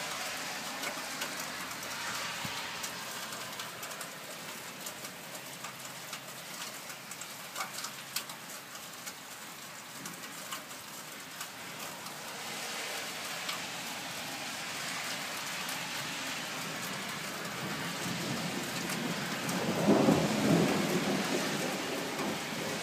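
Steady thunderstorm rain falling, with scattered sharp drops ticking close by. A rumble of thunder rises near the end and is the loudest sound.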